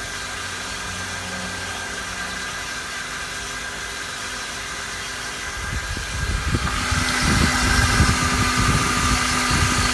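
2003 Honda Accord's four-cylinder engine running with a steady high-pitched whine. About six seconds in it gets louder: the whine grows stronger and a low, uneven rumble joins it.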